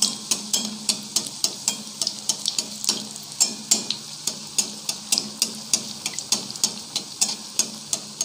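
Battered brinjal slice deep-frying in hot oil in a steel wok: a steady sizzle with frequent sharp crackles and pops, as a metal spatula ladles the oil up over it.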